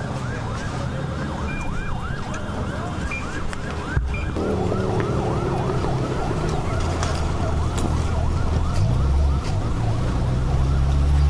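Emergency vehicle sirens yelping, a quick rising-and-falling sweep about three times a second, over the low rumble of vehicle engines. About four seconds in the sound changes abruptly and the engine rumble grows louder under several overlapping sirens.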